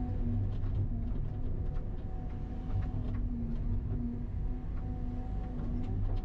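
Hydraulic excavator's diesel engine running under load, heard from inside the cab, with steady humming tones from the machine. Scattered cracks and scrapes come through as the bucket tears through dry brush.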